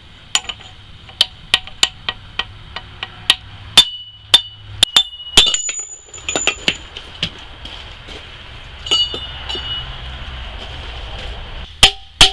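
Hammer blows on a 2005 Honda Element's rear wheel hub, driving it out of the steering knuckle. There is a run of sharp, ringing metal-on-metal strikes, then a lull with a few lighter taps and clinks, then a quick series of hard blows near the end.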